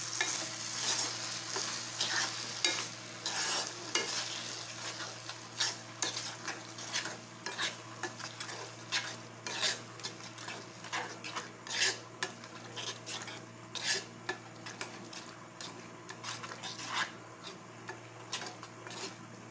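A steel spoon stirring and scraping grated pumpkin as it fries in ghee and sugar in a non-stick kadhai, with irregular light clicks of the spoon against the pan. A soft sizzle is stronger over the first few seconds, then fades.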